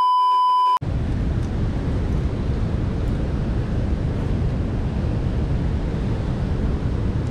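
A censor bleep: a loud, steady high beep for about the first second, cutting off abruptly. After it, a steady low rushing noise of wind buffeting the microphone.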